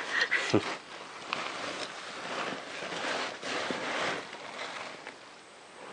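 Rustling and scraping of a caver's clothing and gear against snow and rock while squeezing down a narrow snow-and-rock gap on a rope, with a few light knocks.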